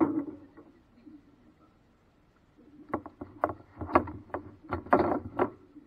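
Paddle knocking against the hull of a small paddle craft on a river float: a clunk at the start, a quiet pause, then a busier run of irregular knocks in the second half.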